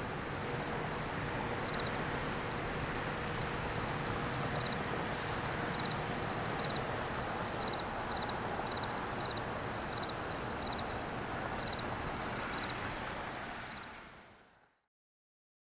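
Outdoor riverside ambience: a steady hiss and low hum with insects chirping in short repeated high pulses, fading out to silence near the end.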